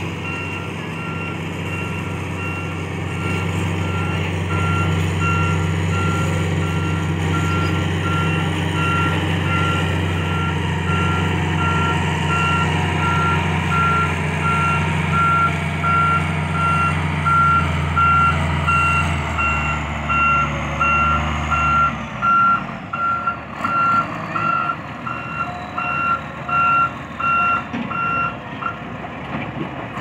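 A dump truck's reversing alarm beeping at an even pace while it backs up, over a low engine rumble. The rumble drops away about two-thirds of the way through, and the beeping stops shortly before the end.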